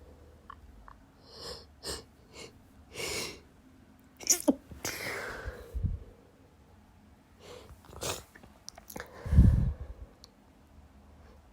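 A person's sneezing fit: a few short catching breaths, then a sharp sneeze about four seconds in, and a second, loudest sneeze about nine seconds in.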